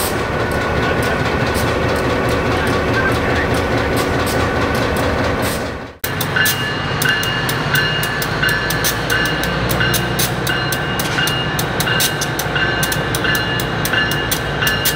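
Diesel switcher locomotive idling with a steady rumble. After a cut about six seconds in, a KLW SE10B switcher rolls slowly along street track with its bell ringing steadily, about one and a half strokes a second, over the engine's rumble and clicking wheels.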